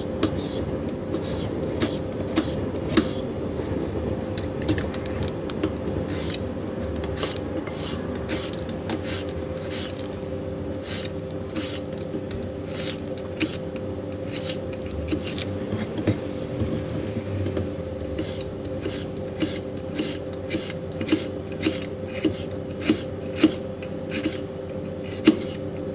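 Garlic cloves being prepared by hand in the kitchen: irregular short scraping and tapping strokes, a few every second, over a steady low hum.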